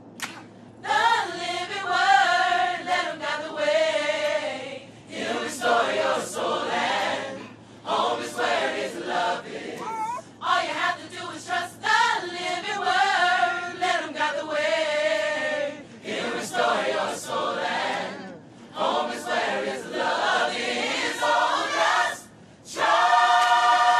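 Gospel choir singing in harmony, phrase after phrase with short breaks between, ending on a long held chord.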